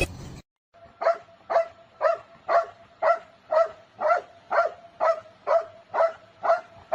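Dog barking in a steady rhythm, about two short barks a second, a dozen in a row.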